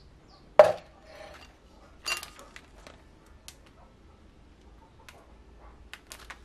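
Plastic-wrapped biscuit packets being set down and handled on a table: a sharp knock about half a second in, a second, softer clatter about two seconds in, then scattered small clicks and crinkles of the wrappers.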